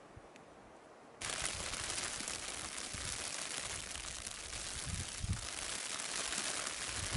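Faint wind on the microphone, then a little over a second in a sudden cut to a steady, dense hiss of falling rain. A brief low bump on the microphone comes about five seconds in.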